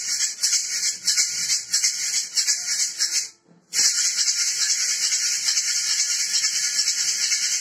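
Square wooden hand shaker shaken fast and evenly, a dense hissing rattle of its filling. It stops for a moment about three and a half seconds in, then starts again.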